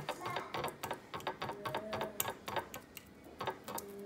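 A metal fork mashing soft, ripe avocado on a ceramic plate, its tines clicking and scraping against the plate in quick, irregular taps.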